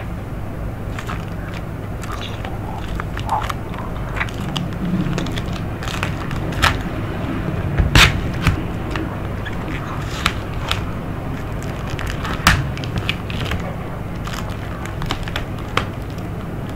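Steady low electrical hum over faint hiss, broken by scattered sharp clicks and knocks, the loudest about eight seconds in and again around twelve and a half seconds in.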